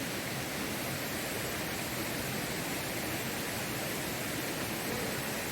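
Mountain valley stream, water rushing steadily.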